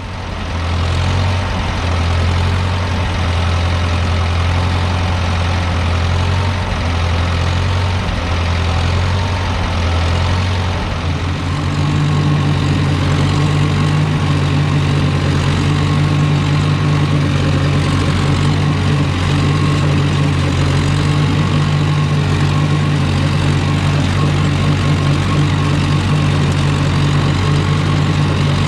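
Tractor engine running steadily at working speed. About eleven seconds in its note steps up to a higher, steady pitch.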